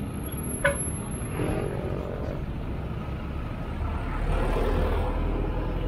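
Street traffic at a busy intersection: motorcycle and car engines running and passing. A heavier vehicle's deep engine rumble grows louder about four seconds in.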